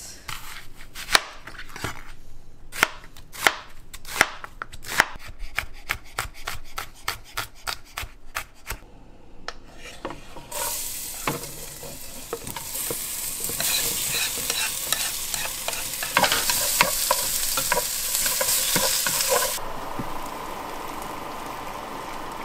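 Kitchen knife chopping on a cutting board, a run of sharp irregular chops for the first nine seconds or so, then food sizzling in a hot pan with stirring clatter, the hiss easing a little near the end.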